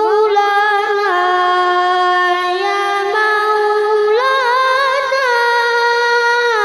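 Long sustained sung or hummed notes, several pitched tones at once, sliding up into place and holding steady, with a slow pitch step now and then.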